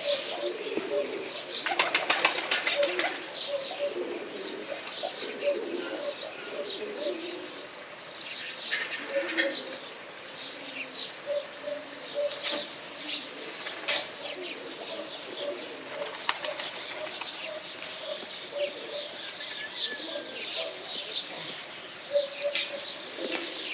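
A group of birds chirping and calling continuously, with strings of short low cooing notes. There is a burst of wing flapping about two seconds in, and shorter flurries later on.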